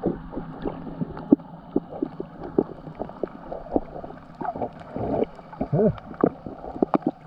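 Water sloshing and gurgling with many irregular small knocks and clicks, muffled and dull, and a brief muffled voice about five seconds in.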